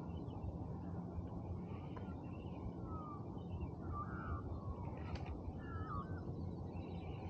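Faint waterside ambience: a steady low rumble with a few faint bird chirps in the middle.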